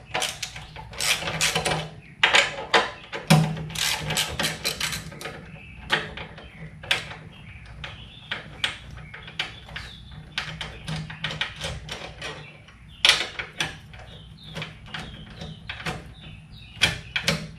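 Socket ratchet clicking in repeated quick runs as two 12 mm bolts are backed out.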